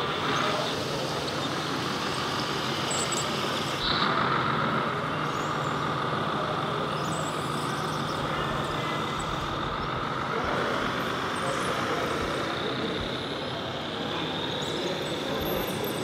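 Radio-controlled scale model construction vehicles running: an electric drive whine that rises and falls in pitch, over a steady low hum.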